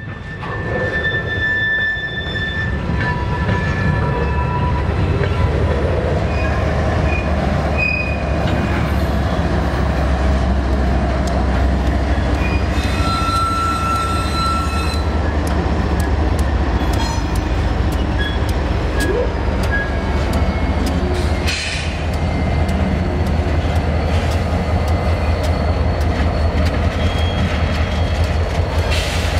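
Freight train passing close by: covered hopper cars roll past with brief high wheel squeals, then the diesel locomotives, an EMD SD40-2 and a GE ES40DC, go by with a deep, steady engine rumble. The sound dips briefly about two-thirds of the way through, then the rumble continues.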